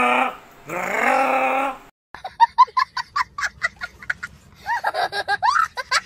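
Two long held vocal sounds, then, after a sudden cut, a young child laughing hard in quick high-pitched gasps.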